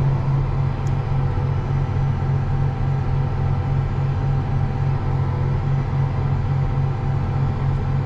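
John Deere 8270R tractor's six-cylinder diesel engine running steadily under the load of a mole plough, heard from inside the cab as an even low drone.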